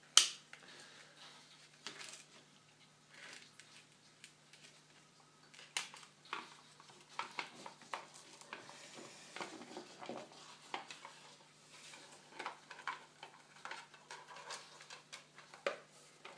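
Hands handling a black plastic electronics project box: scattered clicks, taps and knocks of the plastic case on the table. One sharp click just after the start is the loudest.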